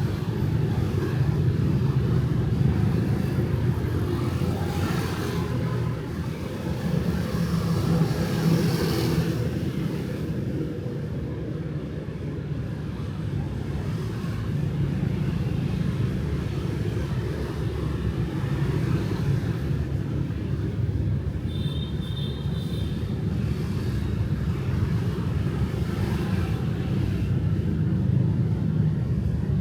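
City street traffic at night, motorbikes and cars passing over a steady low rumble. Louder passes swell up twice in the first third, and a brief high tone sounds about two-thirds of the way through.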